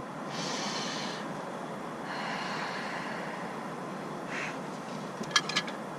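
A man's breath: two long, hissy exhales and a shorter one, then a few light clicks about five seconds in.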